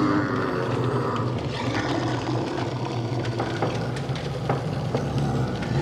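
Designed horror ambience: a steady low droning rumble under a hiss-like haze, with a few faint scattered knocks.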